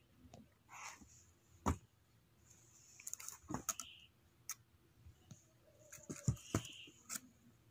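Handling noise from a sneaker, its paper hang tag and the tissue paper in its cardboard box: scattered sharp clicks and knocks with brief rustles between. The loudest knocks come about two seconds in and again around six seconds.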